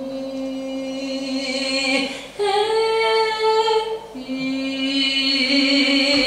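A single voice singing unaccompanied in a pop-singing lesson, holding long notes: a low note, a leap up to a higher held note about two and a half seconds in, then back down to the low note about four seconds in.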